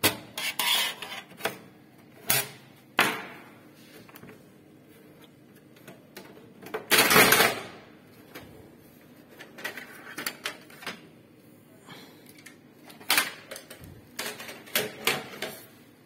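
Plastic covers of an HP LaserJet P1005 laser printer being unclipped and pulled off by hand: a run of sharp clicks, snaps and clattering plastic, with a louder scraping rattle about seven seconds in.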